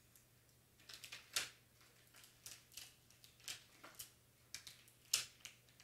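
Crackling of a paper backing liner as it is peeled away from clear transfer tape holding glitter vinyl lettering: a run of short, crisp crinkles beginning about a second in.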